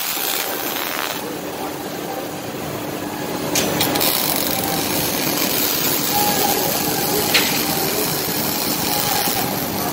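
Two Panasonic welding robots arc welding at once: a steady hiss from the arcs over a faint steady hum, with a sharp click about a third of the way in and another about three-quarters through.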